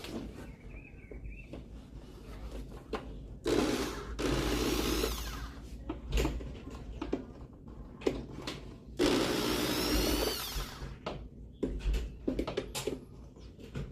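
Electric drill or screwdriver run twice in short spells of a second or two, its pitch shifting as it drives screws, with clicks and knocks of handled parts in between.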